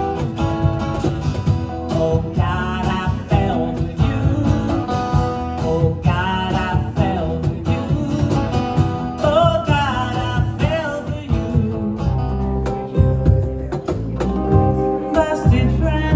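Live acoustic band music: guitars over cajon and bass, with a melody line that bends and wavers. About twelve seconds in, the low end changes to a steadier, held bass.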